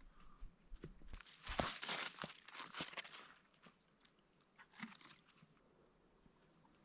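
Irregular crunching and rustling, busiest in the first half and thinning to a few faint clicks.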